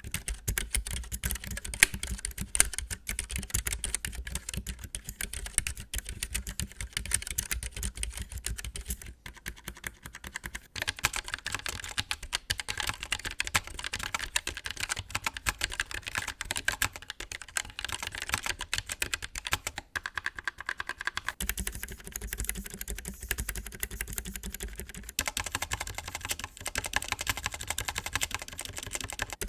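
Typing sound test on a Keychron K3 low-profile mechanical keyboard with white optical switches and factory-lubed stabilizers: a continuous fast patter of keystrokes. The texture of the typing shifts slightly about two-thirds of the way through.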